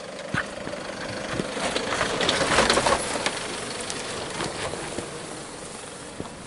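Toyota Land Cruiser's engine running slowly as the SUV crawls down a rough off-road track. Its body and tyres make crackling and scraping noises, loudest about two to three seconds in.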